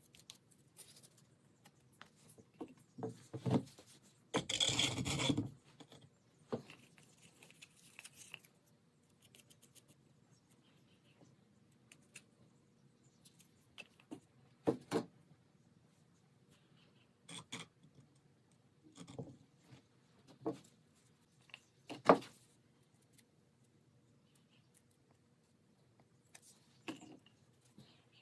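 River stones being handled and stacked onto a brass tube, with a wooden stick scraping on stone: scattered knocks and scrapes. A loud rushing scrape lasts about a second some four seconds in, and a sharp knock about twenty-two seconds in is the loudest.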